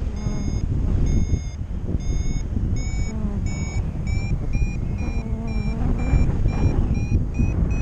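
Paragliding variometer giving its climb tone: short electronic beeps, about two a second at first and quicker and slightly higher in pitch from about halfway, signalling that the glider is climbing in lift. Wind rushes on the microphone underneath.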